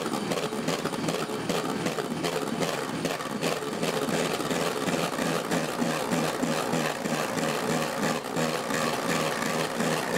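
Electric hand mixer running steadily, its beaters whipping egg whites and hot sugar-honey syrup in a stainless steel bowl into a stiff meringue.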